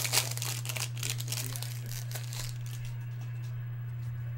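Foil trading-card pack wrapper being torn open and crinkled by hand, the crackling dying away about two and a half seconds in as the cards come out. A steady low hum runs underneath.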